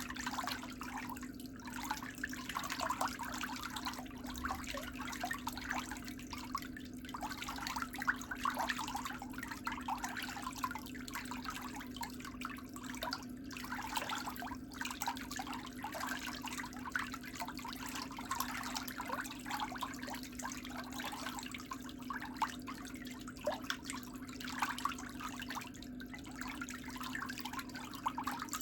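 Water trickling steadily over a low, steady hum.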